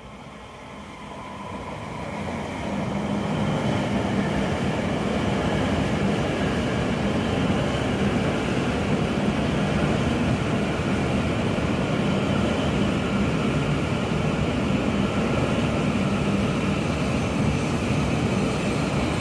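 E5-series Shinkansen train pulling into the station along the platform. Its rolling noise grows louder over the first three seconds as it draws alongside, then holds steady as the carriages pass.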